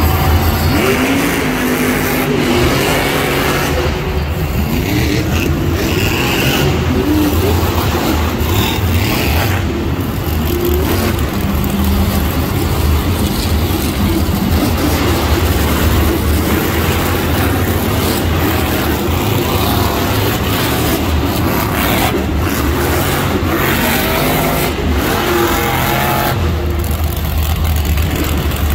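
Monster truck engines, supercharged V8s, running and revving loudly and continuously.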